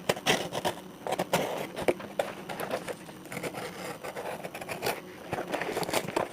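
Irregular scraping, scratching and small clicks from a parcel's packaging being handled and opened.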